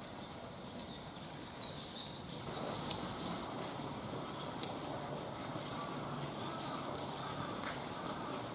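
Steady outdoor background noise with a bird calling in short, repeated high notes: a run of them about two to three seconds in and a couple more near seven seconds. The background grows a little louder a few seconds in.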